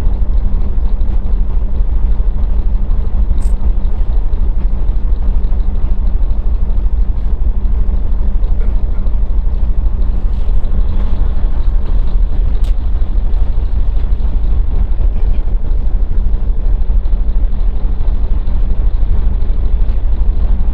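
Cargo ship's engine droning steadily while the ship is under way, a constant low rumble with a steady hum. A couple of faint ticks are heard.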